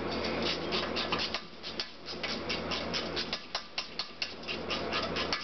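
A small spanner working a nut on a stud of a Honda CX500 aluminium engine block, with blasting sand in the thread: a run of small irregular metal clicks and gritty scrapes, about three to five a second, over a steady low hum.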